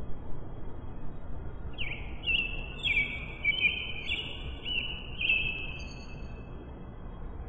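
Birds chirping: a run of overlapping whistled notes with quick pitch flicks, about two to six seconds in, over a steady low background noise.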